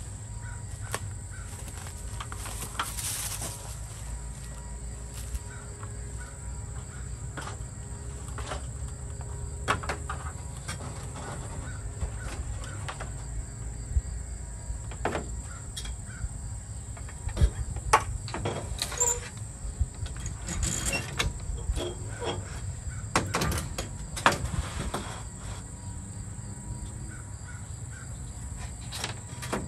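A solar panel's metal frame being lifted and set onto the rails of a metal ground-mount rack: scattered knocks, clicks and scrapes of frame against rails, the loudest cluster between about 17 and 25 seconds in, over a steady high hiss and a low rumble.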